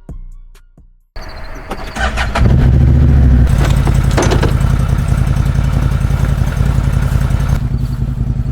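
A motor vehicle's engine running steadily, starting abruptly about a second in and growing louder a little later.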